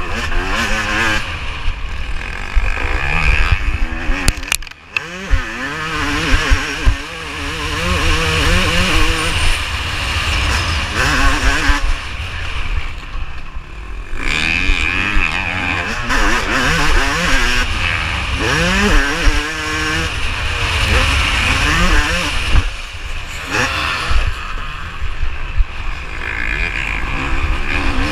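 Yamaha YZ250 two-stroke motocross engine revving hard and falling away over and over as it is ridden around a dirt track, with a heavy low rumble on the bike-mounted camera. The engine note drops away briefly about five seconds in and again near twenty-three seconds, then picks up.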